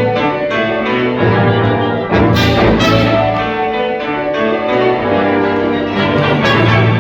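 Symphony orchestra playing a full, sustained passage, with two bright crashes a little after two and three seconds in.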